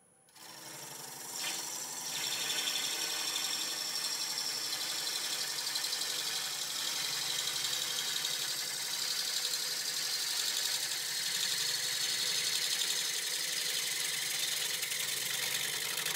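Turning tool cutting a spinning spalted ash bowl blank on a wood lathe: a loud, steady cutting hiss with a fast, even flutter, starting as the tool engages a moment in and building over the first couple of seconds.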